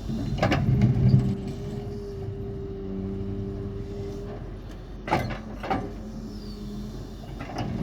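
Doosan DX140 excavator's diesel engine running steadily under work, with a steady whine that fades out about four seconds in. Four sharp metallic knocks: one about half a second in, two close together past the middle, and one near the end.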